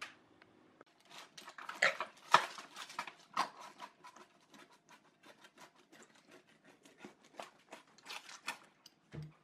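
Pizza cutter wheel rolling through a baked pizza's crust on parchment paper: a long run of irregular crackling, crunching clicks.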